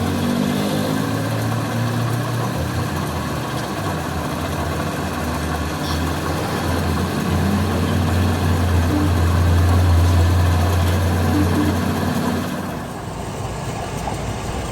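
A heavy engine running steadily with a deep hum, growing louder through the middle and dropping back suddenly near the end.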